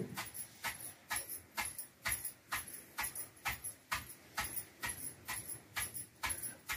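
Wooden pestle pounding moistened pearl millet in a stone mortar, about two even thuds a second. The grain is being crushed coarsely to crack it for khichada.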